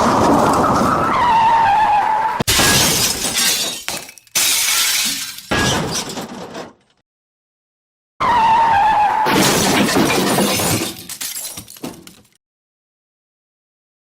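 Dubbed-on car crash sound effects, played twice: a tyre screech with a slightly falling whine, then crashing impacts and shattering glass. Each ends abruptly in dead silence.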